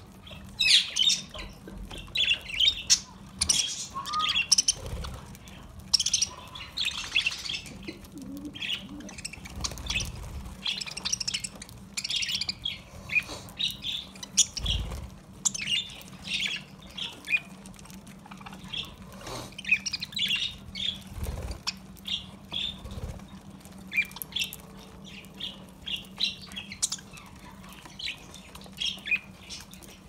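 A flock of budgerigars chirping and chattering, many short sharp calls overlapping, with the occasional flutter of wings.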